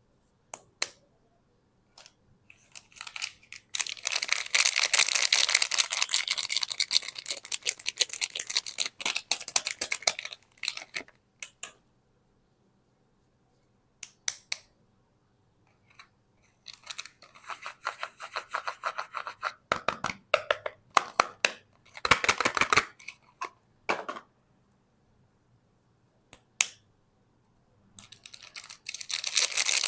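Soap being unwrapped and handled: three spells of dense, crackly rustling, the longest about six seconds, with scattered single clicks and short silences between.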